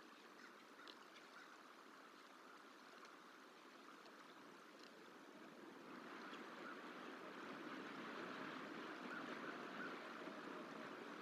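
Faint steady rushing outdoor noise, like flowing water or wind, growing a little louder about halfway through, with a few faint short ticks or chirps.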